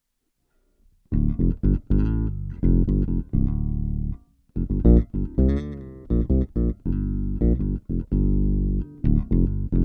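Electric bass played through a Boss OC-2 Octave pedal, with the sub-octave voices one and two octaves down blended with the dry signal for a thick, deep tone. After about a second of silence a riff of short, punchy notes starts, with a brief break just past the middle.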